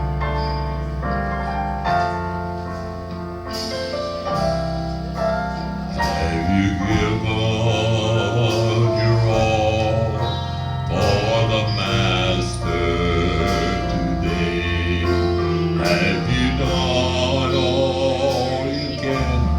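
Gospel quartet singing in harmony over keyboard accompaniment; the voices come in about six seconds in, after a short instrumental lead-in.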